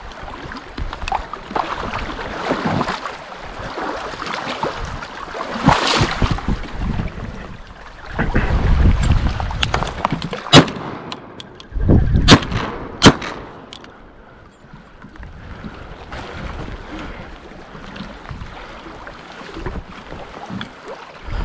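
Wind buffeting the microphone and waves lapping against the boulders of a lakeshore, in gusts. Partway through come a few sharp cracks, the loudest two about two and a half seconds apart.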